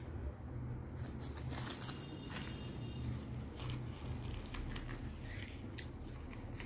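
Puffed, freshly fried luchi being torn by hand, with scattered light crackling and crinkling, then dipped into potato curry and bitten near the end. A steady low hum runs underneath.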